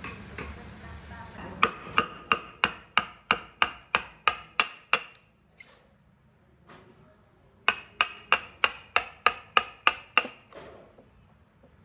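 Rapid, evenly spaced strikes, about three a second, in two runs of a few seconds each with a pause between.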